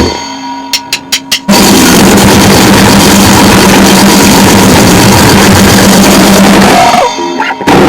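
Noisecore band playing: a wall of heavily distorted guitar, bass and drums, with two short breaks. In the first break, about a second and a half long, an amplifier feedback hum and four quick sharp clicks come before the noise starts. The second break, near the end, holds amplifier hum before the noise starts again.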